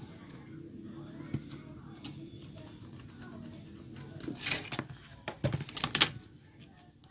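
A steel ruler scraping and knocking against a leather collar strap and the tabletop as it is shifted into a new position, loudest in a few rough scrapes and taps between about four and six seconds in, over a low steady background hum.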